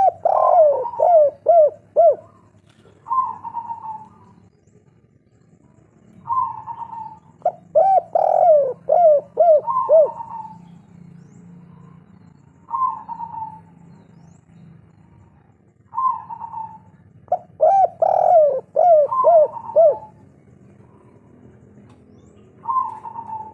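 Spotted dove (tekukur, derkuku) of the 'kuk 3' song type cooing. Three full song phrases, each a quick run of repeated coos, come about eight seconds apart, with single short coos between them.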